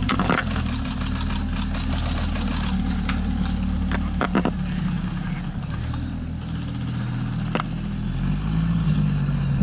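Jeep's engine running steadily, its pitch rising a little near the end. Several sharp snaps or knocks sound over it, with a quick run of fine clicking in the first few seconds.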